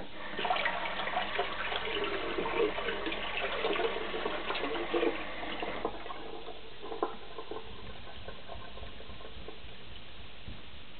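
Water running and splashing for about six seconds, then dying down to light trickles and drips.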